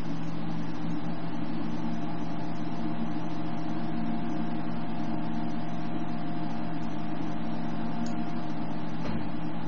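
Steady low hum with an even hiss, holding the same level throughout: the constant background noise of the narrator's microphone at a computer, with no speech.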